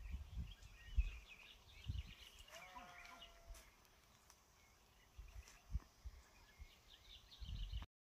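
Quiet open-air ambience: scattered low thumps and faint bird chirps, and about two and a half seconds in a single faint, drawn-out animal call lasting about a second.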